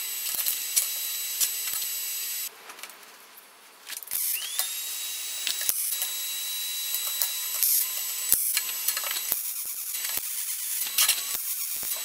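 Aluminium plates and a steel jig being handled on a steel welding table: repeated short metallic clicks and knocks. Behind them runs a steady high-pitched hiss with a thin whine, which drops out briefly and comes back about four seconds in with a rising whine.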